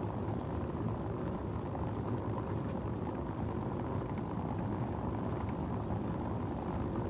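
Steady low rumble of a vehicle on the move, road and engine noise holding even throughout.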